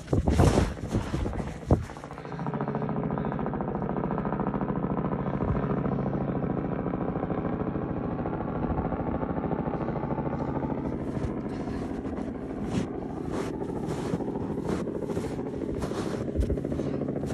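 Robinson R44 helicopter in flight: a steady drone of rotor beat and piston engine. Wind gusts on the microphone at the start and again near the end.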